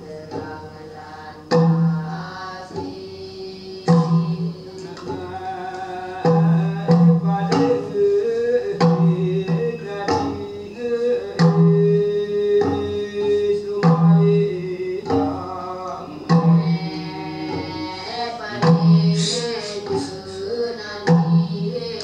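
A recording of Temiar healing-song music: singing over a steady beat of low percussive strokes, about one every two and a half seconds, with quicker knocks between.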